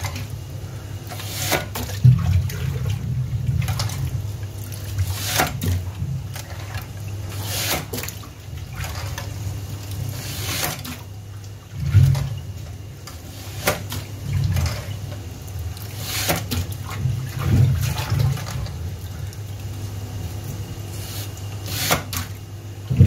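Water running and sloshing in a stainless steel sink, broken every few seconds by sharp knocks from a wall-mounted lever French fry cutter as potatoes are pressed through its blade grid.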